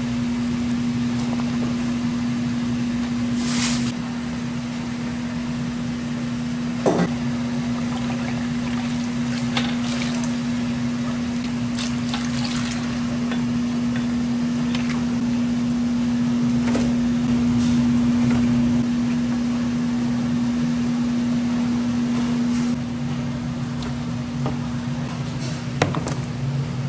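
Steady mechanical hum, with a few sharp clicks and knocks over it, the clearest about four seconds in, about seven seconds in and near the end.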